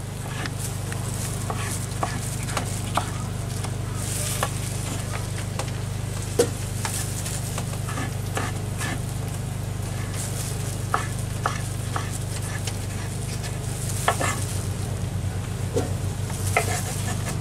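Knife dicing a tomato on a wooden cutting board: irregular sharp knocks of the blade against the board, over a steady low hum.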